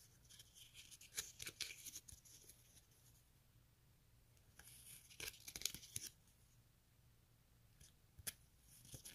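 Faint rustling and light clicks of a small paper sticker book's pages being turned by hand, in three short spells.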